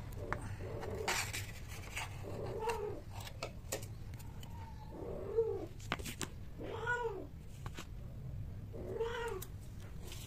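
Domestic cats mating: a cat gives about four drawn-out calls a couple of seconds apart, each rising and then falling in pitch.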